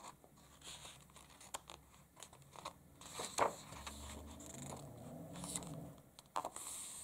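A page of a paperback picture book being turned by hand: soft paper rustling with a few light clicks as the sheet is lifted, swept over and laid flat, a sharper stroke about three and a half seconds in and another near the end.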